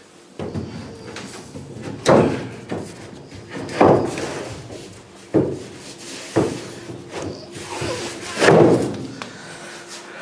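Wooden floor boards being laid and knocked down onto the timber floor framework: a series of heavy thuds, about five over ten seconds, each with a short echo.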